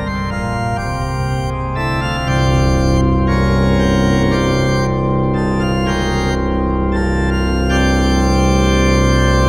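Organ playing held, many-note chords over a deep bass. A louder, fuller chord comes in a little after two seconds in, and the upper notes change again near the end.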